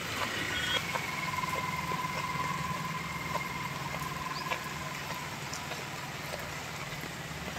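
Heavy rain falling steadily on a flooded paved lot, with a low steady hum of a vehicle engine idling underneath. From about a second in, a faint high tone is held for a few seconds, then fades.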